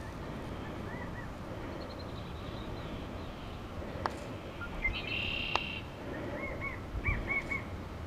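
Wild songbirds calling. A quick run of thin high notes comes about two seconds in, a short buzzy trill about halfway, and a run of four or five clear looping notes near the end. Two sharp clicks and a low rumble on the microphone lie underneath.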